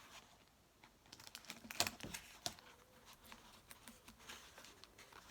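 Light, irregular clicks and taps from handling a plastic bottle and cardboard while sticky tape is pressed on.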